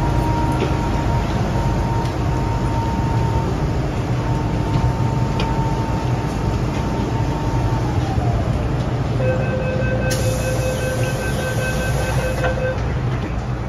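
MTR M-Train (Metro-Cammell) standing at a platform: the steady rumble of its equipment, with a whine that drops in pitch about eight seconds in. Near the end comes the rapid beeping of the door-closing warning for about three seconds, while the doors close with a hiss.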